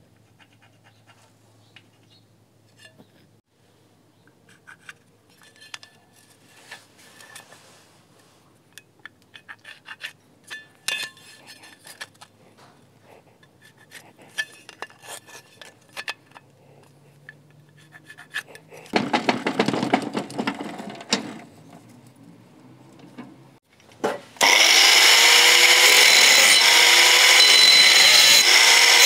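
Light clinks and scrapes of steel pieces being handled and marked, with a short stretch of rougher scraping. Near the end an angle grinder starts up and cuts into a steel bar clamped in a vise: a loud, steady, high whine whose pitch dips as the disc bites into the metal.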